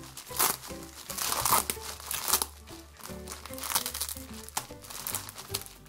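Packaging crinkling and rustling in irregular bursts as a package is unwrapped by hand, over background music.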